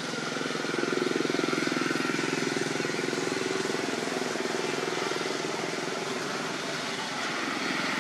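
Engine running steadily with a fine rapid pulse, loudest about a second in and then slowly fading.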